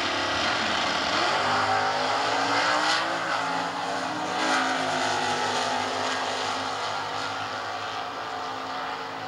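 Two stock-class drag racing cars launching side by side and accelerating hard down the strip. Their engine note climbs, drops about three seconds in and climbs again, then fades as the cars pull away.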